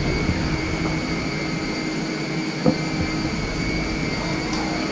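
Steady whir of a parked Boeing 747's air systems at the boarding door: a low hum under a constant high whine, with a single knock a little over halfway through.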